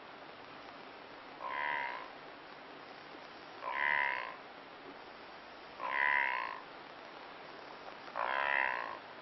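Blue wildebeest (brindled gnu) giving its grunting call, four times at an even rhythm of about one call every two seconds, each call lasting under a second.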